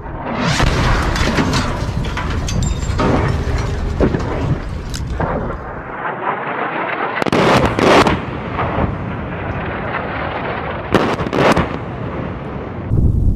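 30 mm cannon rounds from an A-10's GAU-8 Avenger exploding on the ground among target vehicles: a long rolling crackle of impacts, with louder bursts about seven and eleven seconds in.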